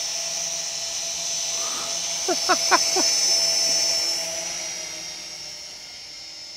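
Small toy quadcopter's motors and propellers whining steadily as it hovers close by, then fading as it flies away, about four to five seconds in.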